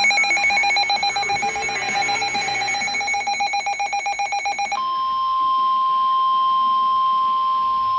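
An electronic alert signal: a rapidly pulsing, buzzy alarm beeping for about five seconds, then a single steady tone near 1,000 Hz that takes over and holds to the end — the 1050 Hz warning alarm tone that precedes a NOAA Weather Radio warning.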